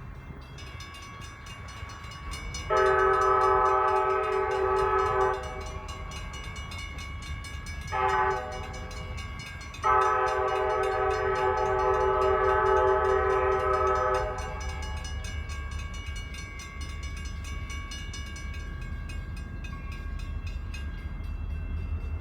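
Freight diesel locomotive's multi-chime air horn: a long blast, a short blast, then a longer blast, over the steady low rumble of the locomotives' diesel engines.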